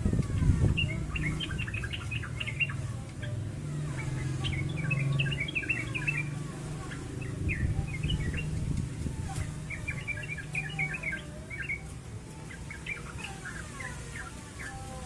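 Small songbirds chirping and twittering in four quick bouts of rapid high notes, over a steady low hum.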